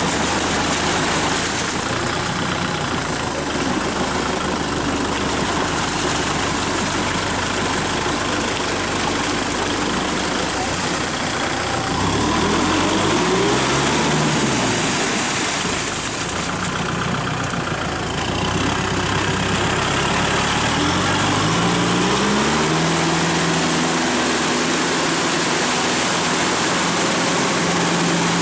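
Kubota tractor's diesel engine running under load as it pulls steel cage wheels and a levelling board through a flooded rice paddy. The engine pitch rises and falls about halfway through and rises again later.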